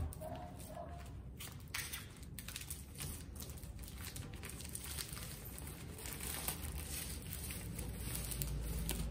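Plastic crinkling and fabric rustling: a sand-filled pouch made from a plastic rice bag is being pushed into a fabric cat's body, with irregular crackles throughout.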